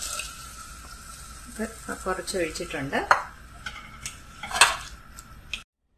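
Wooden spoon stirring vegetable stew in an aluminium pressure cooker pot, over a low sizzle as coconut milk goes into the hot pot. The spoon knocks sharply against the pot twice, about three and four and a half seconds in, and the sound cuts off suddenly near the end.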